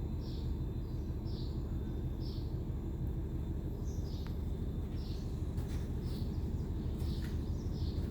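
A bird calling in short, high chirps, repeated about once a second, over a steady low background rumble.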